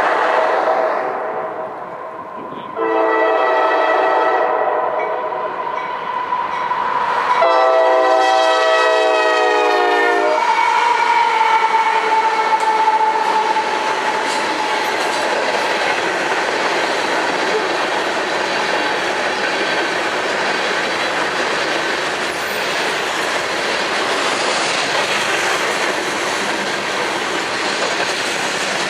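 A locomotive horn sounds a chord of several tones: the tail of one blast, then two long blasts, the second louder. As the locomotive passes, the horn's pitch drops and it fades. The train then rolls by with a steady rush of wheel and rail noise and clickety-clack over the rail joints.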